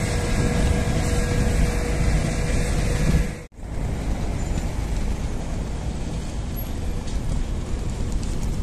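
City bus engines and road noise: a bus pulling away with a steady engine tone, then, after a sudden cut a little over three seconds in, another bus approaching.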